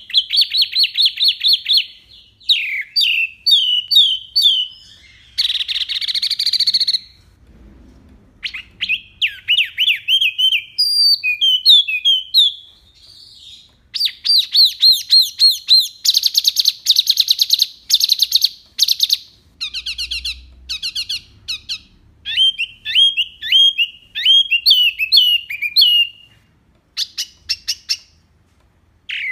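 A wambi mini singing: a bird's song of rapid-fire phrases of sharp, clear whistled notes, some run together into fast trills and others in quicker or slower repeated series, broken by short pauses.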